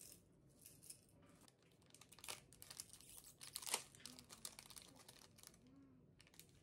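Plastic snack wrapper crinkling and tearing as an individually wrapped biscuit is opened by hand, the crackling densest and loudest around the middle.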